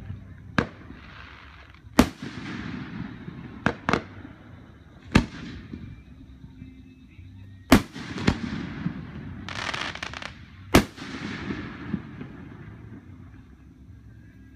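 Aerial firework shells bursting overhead: about eight sharp booms, two of them in quick pairs, each followed by a hissing, crackling tail. A longer patch of crackle comes just before the boom near the eleven-second mark.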